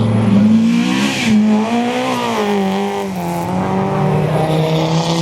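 Historic rally car's engine revving, its pitch rising and falling several times, then holding a steady note for the last couple of seconds. A brief hiss sounds about a second in.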